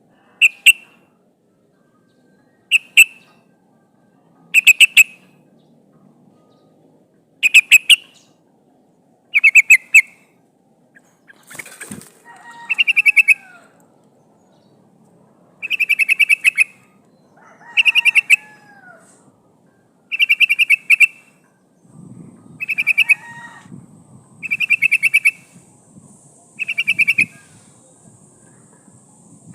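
Yellow-vented bulbul (trucukan) calling: short, rapid chattering phrases of quick notes, repeated about every two seconds. It is used as a lure sound, which the uploader presents as a female calling for a male.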